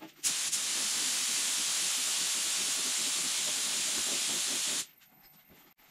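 Compressed-air paint spray gun spraying: a steady hiss that starts abruptly just after the beginning and cuts off about a second before the end.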